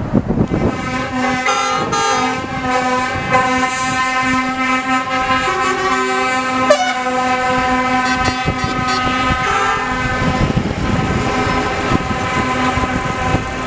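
Truck air horn sounded in one long, steady blast lasting about eleven seconds, with a second horn tone joining briefly a few times, over the engines of heavy trucks driving past.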